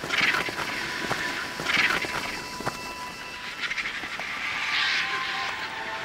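Griffon vultures squabbling over a carcass, giving harsh hissing screeches in three bursts: at the start, just before two seconds in, and near five seconds in.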